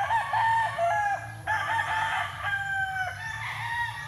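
Several gamecocks crowing one after another, their crows partly overlapping, with one longer, slightly falling crow near the middle.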